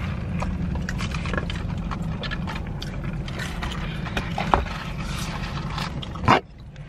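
Steady low hum inside a car's cabin, with scattered small rustles and clicks of food packaging and a drink cup being handled. A loud knock comes about six seconds in, and the hum briefly drops out after it.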